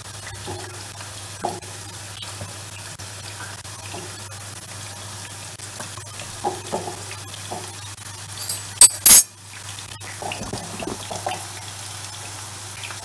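Small wet splashes and drips as whole button mushrooms are lifted by hand out of a bowl of lemon water, over a faint steady frying sizzle. About nine seconds in, two sharp, loud knocks close together stand out as the loudest sound.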